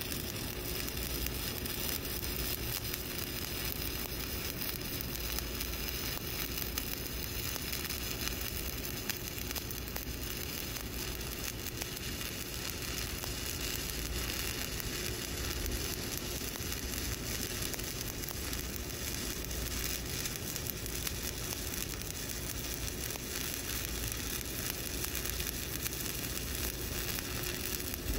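Shielded metal arc (stick) welding with a 7018 electrode: the arc burns without a break, with a steady crackling sizzle, as a cover pass is run along a horizontal groove weld.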